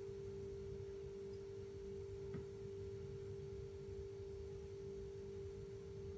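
A faint, steady hum on one pitch, with a low rumble beneath it and a single light click a little over two seconds in.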